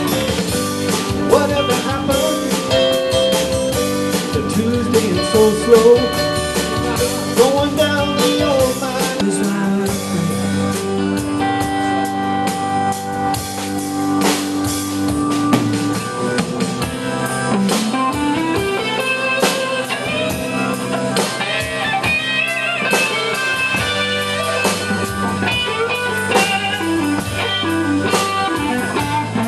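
Live band playing an instrumental passage: electric guitar, keyboard and drum kit, the guitar playing some notes that slide in pitch.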